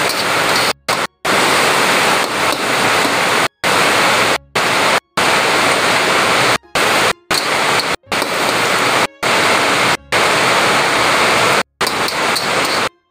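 Chopped vegetables sizzling in hot oil in a steel wok as a spatula stirs them: a loud, steady hiss, broken by several short, sudden silences.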